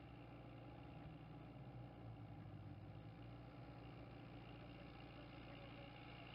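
Faint, steady hum of a high-clearance crop-spraying tractor's diesel engine running under way.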